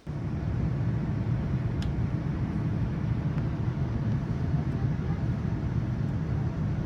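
Steady low rumble of a vehicle running, starting abruptly, with a faint click about two seconds in.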